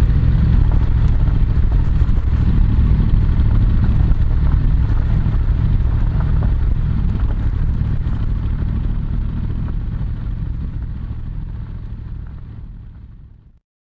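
Yamaha MT-07's parallel-twin engine running steadily through an SP Tadao Power Box full exhaust, a deep exhaust note at easy riding speed, picked up by a microphone in the rider's back pocket. The sound fades out to silence near the end.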